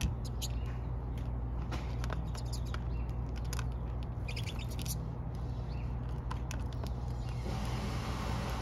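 A flock of pine siskins giving many short, high chirping calls in quick scattered clusters, over a steady low hum. The calls thin out about seven and a half seconds in.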